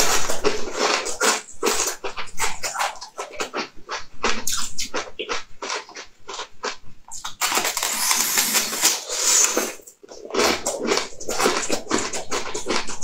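Close-up eating sounds: a person biting into and chewing a blue guitar-shaped edible piece, a quick irregular run of sharp wet mouth and chewing noises with a short pause about ten seconds in.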